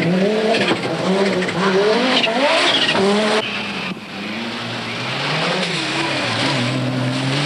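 Group B rally car engines at speed on a stage, revving up and dropping back again and again through gear changes, with tyre noise underneath. The sound changes abruptly about three and a half seconds in, as one car's run gives way to another's.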